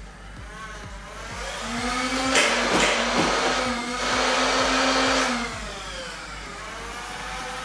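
Motorized Nerf blaster's flywheels spinning up to a steady whine, holding for a few seconds and then winding down again, with a few sharp pops about two to three seconds in as foam balls are fired.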